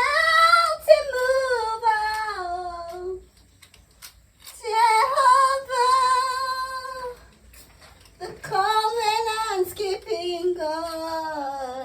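A high voice singing three long, drawn-out phrases, each gliding slowly down in pitch, with short pauses between them.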